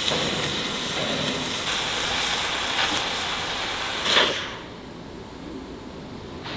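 Oxy-fuel cutting torch hissing steadily as its oxygen jet cuts through Hardox 400 steel plate. About four seconds in the hiss surges briefly, then cuts off as the cut finishes, leaving a quieter low background hum.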